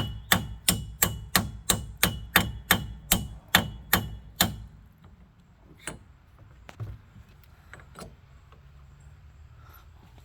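Sharp metal-on-metal blows, about three a second, driving the 1 3/8-inch socket on a car's front axle nut to break it loose. There is a low rumble under the blows, and they stop about four and a half seconds in, followed by a few faint knocks.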